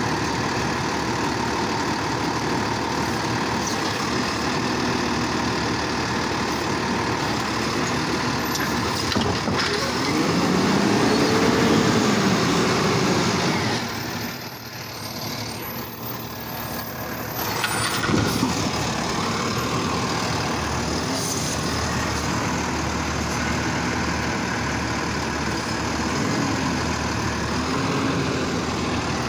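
Automated side-loader garbage truck running, its engine and hydraulic lift arm working as the arm dumps a cart. The engine revs up and back down about ten seconds in, goes quieter for a few seconds, and then there is a sharp knock.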